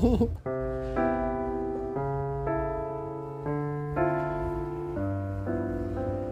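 Background music: a light piano tune, its notes and chords changing about every half second to a second.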